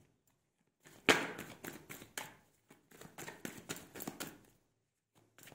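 A deck of tarot cards being handled and shuffled by hand: a sharp tap about a second in, then a quick, irregular run of card clicks and flicks that stops shortly before the end.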